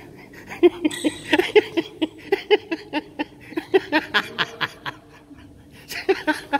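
A person laughing in a long run of short pitched bursts, about three a second, with a brief lull about five seconds in.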